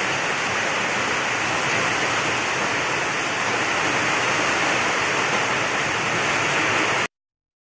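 Heavy rain pouring down, a steady dense hiss that cuts off suddenly about seven seconds in.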